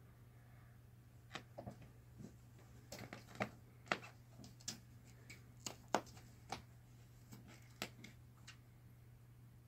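A cat pawing and clawing at a cloth curtain: an irregular run of short scratches and ticks as its claws catch the fabric, a few of them sharper and louder in the middle.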